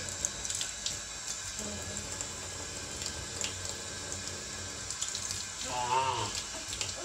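Bathroom sink faucet running in a thin, steady stream, the water splashing over small hands into the basin. A toddler gives a short babble about six seconds in.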